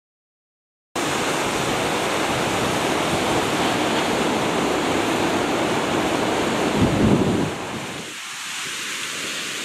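Heavy sea surf breaking and churning against volcanic rock, with wind buffeting the microphone. It starts abruptly about a second in, swells loudest with a low rumble about seven seconds in, then eases.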